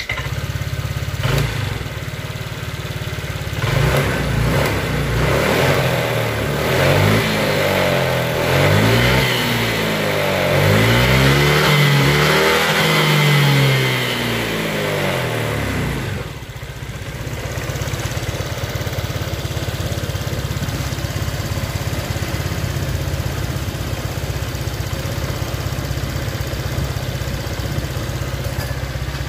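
Honda Vario 125 scooter's single-cylinder engine running just after starting. It idles, is revved up and down several times in a row from about four seconds in, then settles back to a steady idle. With a new cam chain tensioner fitted, it runs smoothly, without the rough noise it had before the repair.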